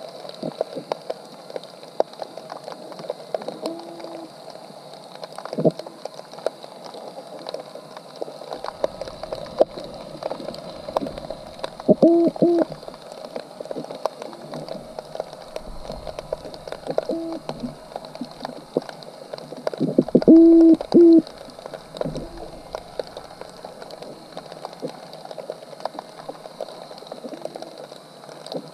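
Underwater sound picked up by a GoPro in its housing inside a crab trap: a constant crackle of fine clicks, with a handful of short, low, hooting calls. Two of the calls come as close pairs, the louder pair about two-thirds through.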